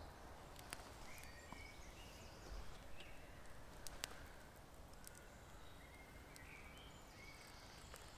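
Quiet woodland, near silence, with faint scattered bird chirps and a few small clicks.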